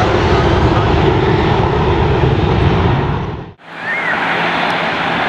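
Jet airliner engine noise, loud and dense. It cuts out abruptly about three and a half seconds in, then picks up again as a somewhat quieter steady engine sound with a low hum.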